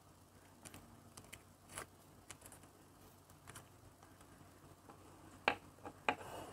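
Faint, scattered clicks and scrapes of a small knife working garlic cloves out of their papery skins over a wooden cutting board, then two sharper taps on the board about half a second apart near the end, the second followed by a brief rustle.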